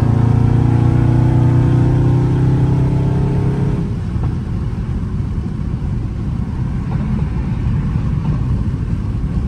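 Dodge Charger Scat Pack's 6.4-litre HEMI V8 pulling under hard acceleration at highway speed, heard from inside the cabin, its note climbing steadily. About four seconds in the engine note drops away suddenly as the throttle is lifted, leaving a low road and tyre rumble.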